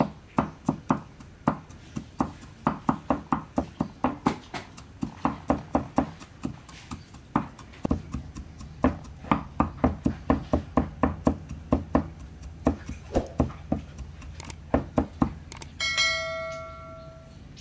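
Cleaver chopping garlic on a round wooden chopping block: quick repeated knocks, about three a second. Near the end a short chime sounds.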